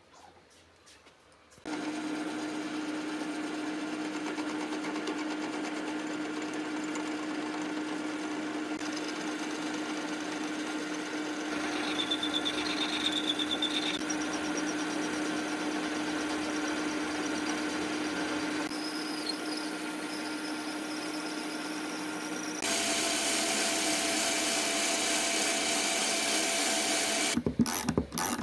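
Metal lathe running, turning a shaft held between the chuck and the tailstock centre with a tool bit cutting it. A steady hum starts about two seconds in, with a short high whine near the middle, and the sound grows louder for the last few seconds.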